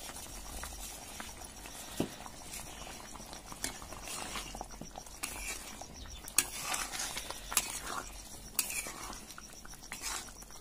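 Paneer curry simmering and bubbling in an aluminium kadhai, with a ladle stirring and clinking sharply against the pan a few times.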